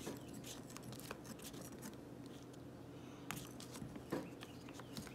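Faint, irregular sticky clicks and crackles of freshly activated glue slime being stirred and handled in a bowl, still gooey and not yet set.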